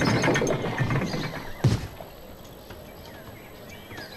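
A noisy stretch cut off by a single heavy thud, then faint bird chirps near the end.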